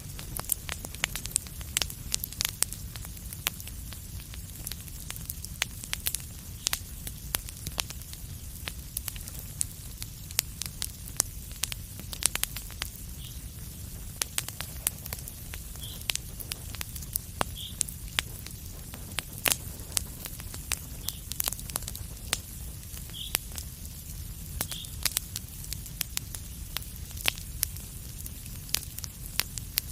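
A fireplace fire crackling, with many sharp, irregular pops over a steady low rumble and a few brief faint hisses.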